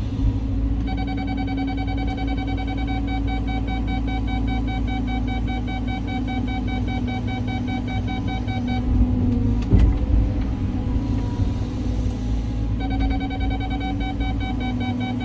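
Cat 323 hydraulic excavator's diesel engine and hydraulics running steadily under load, a low rumble with a steady hum over it. A rapid electronic beeping sounds for most of the first nine seconds, stops, and starts again about thirteen seconds in; a single sharp knock comes about two-thirds of the way through.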